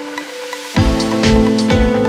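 Electronic background music: a brief breakdown with the bass and beat dropped out, then the kick drum and bass come back in about a second in with a steady beat.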